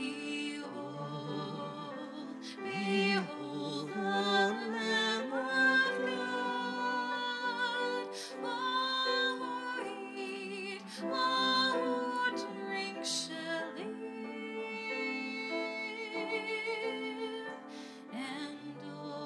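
Church music: a solo voice sings slow sustained notes with vibrato over steady instrumental accompaniment.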